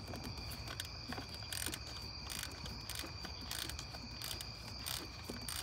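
Light, scattered metallic clicks and taps of a socket extension and socket being worked loose with a screwdriver among engine-bay parts. Crickets trill steadily in the background.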